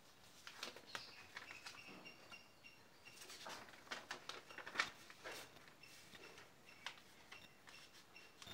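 A sheet of paper being handled and folded by hand: faint rustling with irregular crisp crinkles and creasing snaps, the sharpest just before the middle.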